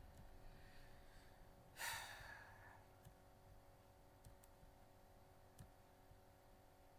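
Near silence with a faint steady hum. About two seconds in, a person lets out one audible sigh, and a few faint clicks follow later.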